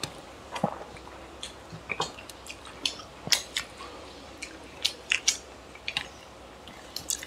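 Close-up eating sounds of two people eating chicken curry and rice by hand: wet chewing with many short, irregular smacks and clicks, and fingers squishing curry-soaked rice.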